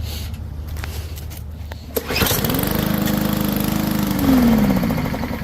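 Powermore engine on a Yard Machines push mower pulled over about two seconds in. It fires and runs at a steady speed for about two seconds, then slows and dies out. The owner takes this for a sign that a passage in the carburetor is still clogged.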